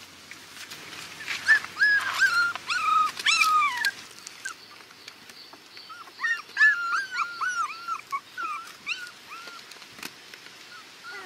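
Young puppies whimpering: runs of short, high-pitched cries, each rising then falling in pitch, in two bouts with a pause between them.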